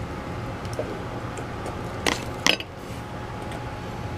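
Metal spoon set down into a cardboard pie box: two sharp clacks about half a second apart a little after the middle, over a steady background hum.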